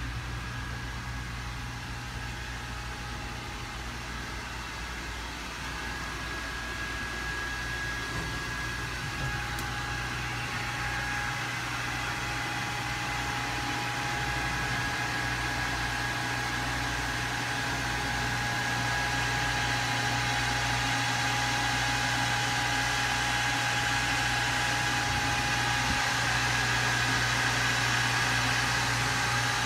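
Steady machinery hum in a boat's engine compartment, with a thin high whine that joins a few seconds in; it grows gradually louder.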